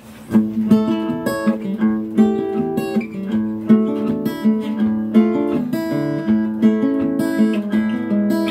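Cutaway acoustic guitar played with a flat pick: a continuous run of picked notes and chords, starting just after the beginning.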